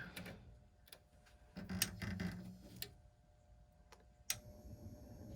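Several separate light clicks and taps as an alligator-clip jumper is connected between the R and W terminals of a gas furnace control board to call for heat, the sharpest click about four seconds in.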